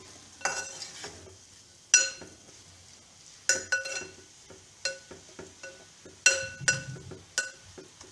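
Metal spoon stirring a thick vegetable and coconut mixture in a metal pot, striking the pot's side again and again in sharp clinks that ring briefly, with soft scraping between them.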